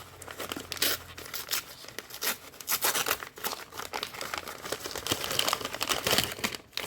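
Packaging being unwrapped by hand: a dense run of crinkling and tearing as a stationery parcel is opened.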